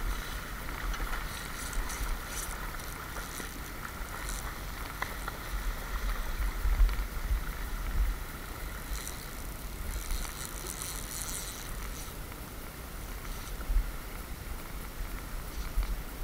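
Steady rush of river water with wind rumbling on the microphone, broken by short splashes as a hooked salmon thrashes at the surface.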